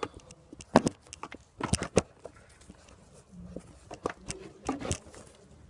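Scattered, irregular clicks and knocks of hand work in an engine bay as a serpentine belt is worked off its pulleys, the loudest about a second in and just before two seconds.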